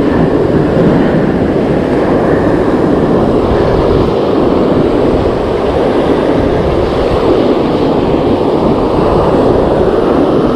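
Steady, loud rush of breaking surf mixed with wind buffeting the microphone.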